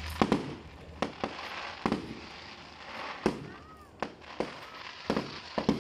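Aerial fireworks going off: about ten sharp bangs at irregular spacing, some in quick pairs, with a crackle between them.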